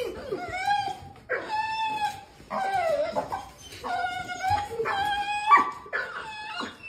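Australian cattle dog whining and yowling in excited greeting: about six high, wavering cries, each under a second long, one after another.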